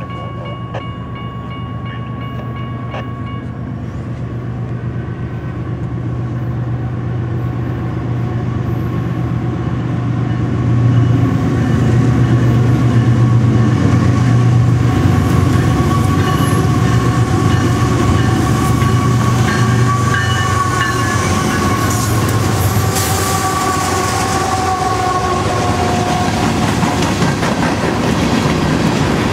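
Freight train led by a GE Evolution-series (GEVO) diesel locomotive approaching and passing: the low engine drone grows louder over the first ten seconds or so and then holds. Near the end, coal hopper cars roll by with wheel clatter on the rails.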